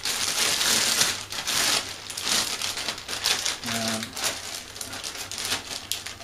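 Thin plastic sandwich bag crinkling and rustling as it is handled and turned inside out, most continuous in the first two seconds and then in shorter, irregular bursts.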